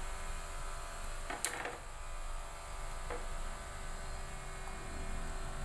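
Steady low hum, with a short sharp clatter about one and a half seconds in and a fainter click about three seconds in.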